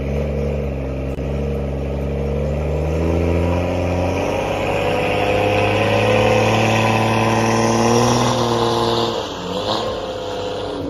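BMW 340i's 3.0-litre turbocharged B58 inline-six held at high revs during a burnout attempt. The revs climb slowly, with a hiss growing over the engine, then drop off about nine seconds in.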